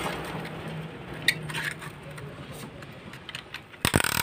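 Metal clinks of a ratchet-type piston ring compressor being fitted around a piston, with a quick run of sharp ratchet clicks near the end as it is tightened.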